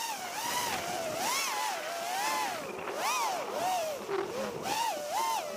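6S FPV quadcopter's brushless motors and propellers whining, the pitch rising and falling continually with the throttle, over a steady rushing noise.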